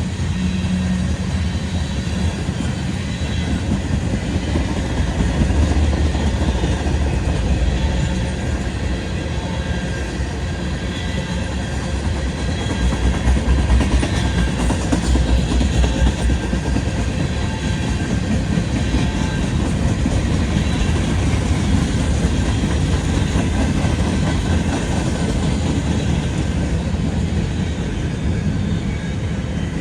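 Cars of a manifest freight train rolling past on the rails, a steady loud rumble that swells slightly now and then.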